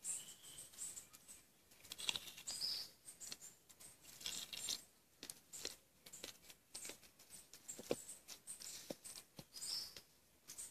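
Faint clicks and rustles of halved fruit being picked up and set down on a wooden board, with short high chirps scattered throughout.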